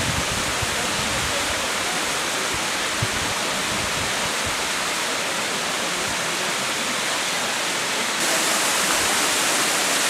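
Waterfall: a steady rush of water falling down a rock face, a little louder from about eight seconds in.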